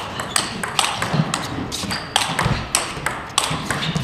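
Table tennis rally: the plastic ball cracking off the bats and bouncing on the table in quick alternation, about three sharp clicks a second, with a few heavier low thuds among them.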